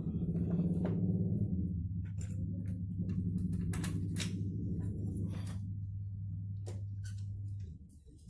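Metal clicks and clinks of tools and parts being handled during reassembly, most of them between about two and six seconds in, over a steady low hum that fades out near the end.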